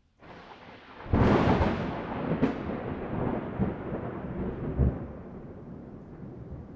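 Thunderclap: a sharp crack about a second in, a second crack a second or so later, then a long rolling rumble that slowly fades.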